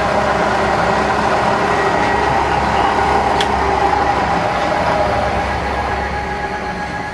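Servo power feed motor on a Bridgeport milling machine driving the table, a steady motor whine with a single click about three and a half seconds in.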